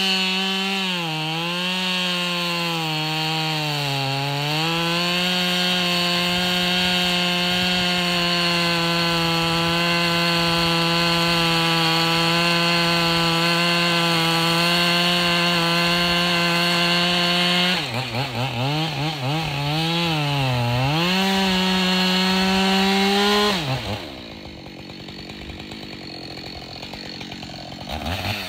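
Gas chainsaw at full throttle cutting into a big dirt-covered stump low to the ground, its engine note sagging at moments as the chain bogs in the cut. About two-thirds through the engine dips and surges several times, then drops to idle for the last few seconds, with a short rev near the end.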